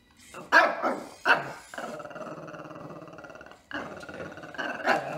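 Small dog barking, with two sharp barks early on, a drawn-out growl, then another round of barks near the end.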